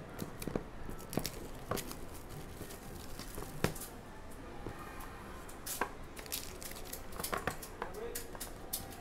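Cellophane shrink-wrap being torn and crinkled off a trading-card hobby box, then the cardboard box opened and foil card packs handled, giving irregular sharp crackles and rustles.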